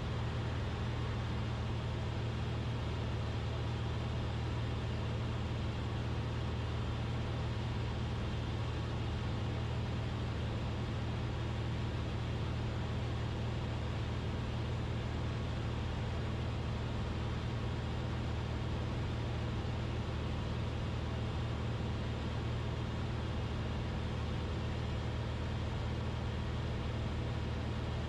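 Cessna 172RG Cutlass's four-cylinder Lycoming O-360 engine and propeller droning steadily in level cruise flight, heard inside the cockpit, the engine running normally with temperatures and oil pressure good.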